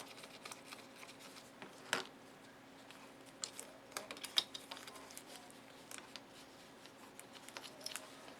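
Small plastic nuts being fitted by hand onto the mounting studs of a circuit board: faint scattered clicks and ticks of plastic parts, with a sharper click about two seconds in and a few more around four seconds.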